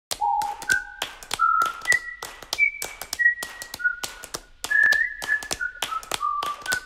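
A whistled tune of short held notes, each at a different pitch, some sliding up slightly, over a string of quick, irregular sharp taps.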